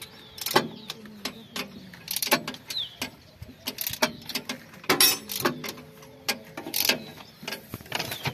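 Socket ratchet wrench clicking in short runs and spanners clinking against the tractor's metal hydraulic housing, in irregular bursts while bolts are worked.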